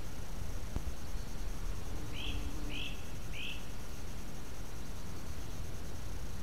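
A bird gives three short, falling chirps about two seconds in, a little over half a second apart, over a steady low noise.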